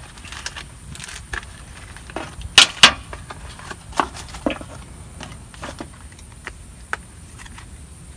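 Plastic knife packaging being handled and pulled open: crinkling and scattered clicks, with two sharp snaps about two and a half seconds in.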